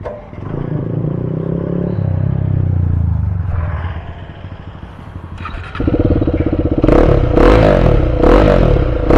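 KTM Duke 390's single-cylinder engine, breathing through an Austin Racing replica full-system exhaust, starting up and running, then revved repeatedly and louder over the last few seconds.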